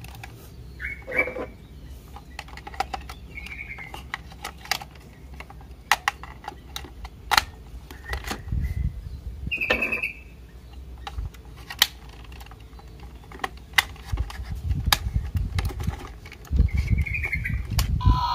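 Clicks and taps of hard plastic and metal as AA batteries are pressed into a toy cow's battery compartment and the cover is fitted, with low rubbing and knocking from handling the toy.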